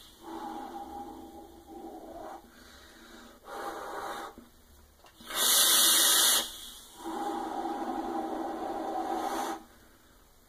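Vaping on a series-wired dual-coil mechanical mod with a 0.40-ohm build: long, airy, faintly whistling draws through the atomizer's airflow. A loud, breathy blast of exhaled vapour comes about five and a half seconds in.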